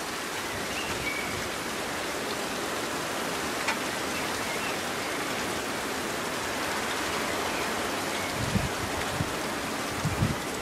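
Heavy rain falling in a steady hiss. There is one sharp click a little over a third of the way in and a few low thumps near the end.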